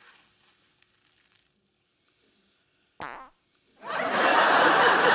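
A short fart about three seconds in, followed by a studio audience laughing loudly.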